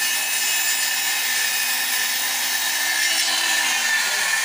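Handheld electric circular saw running and cutting through thin wooden slats, a steady whine over the noise of the blade in the wood.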